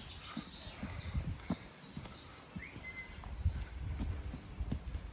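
Footsteps on a dirt woodland path, heard as irregular soft thuds over a low rumble, with birds singing: a quick run of short high chirps in the first second and a single brief note about halfway through.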